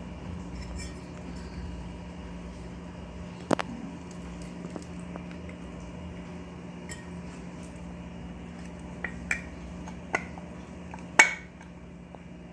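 Metal ceiling fan parts clinking and knocking as the fan's cover is handled and fitted back on: a few separate sharp clinks, the loudest about eleven seconds in.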